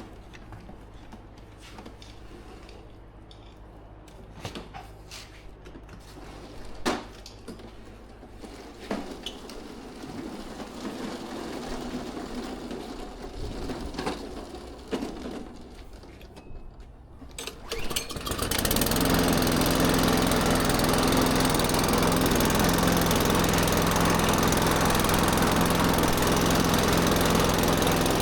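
Scattered clicks and knocks of hand work on a Benchmark lawn mower, then about two-thirds of the way in its small engine starts and runs loudly and steadily.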